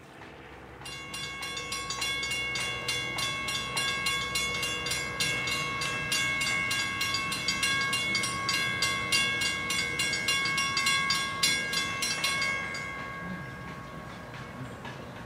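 A railroad warning bell ringing rapidly, about four even strikes a second, stopping abruptly near the end while its ringing tone lingers. An approaching freight train's low, distant rumble lies underneath.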